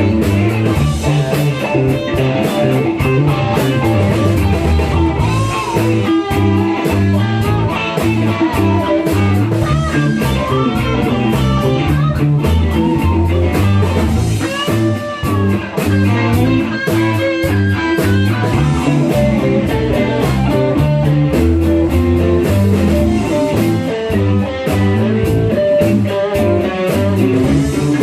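Blues-rock song led by guitar over a steady drum beat.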